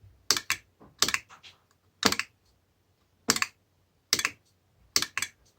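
Berker momentary wall push-button being pressed and released about six times at uneven intervals, each press a quick double click.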